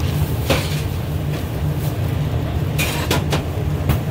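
A steady low rumble in the background, with a few short rustles and knocks as food is packed into polystyrene takeaway boxes, once about half a second in and again around three seconds in.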